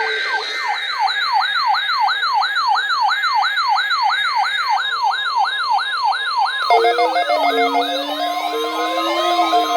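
Sirens in a fast rising yelp, about three sweeps a second. About seven seconds in, more sirens with different sweep rates join in, along with a lower steady tone.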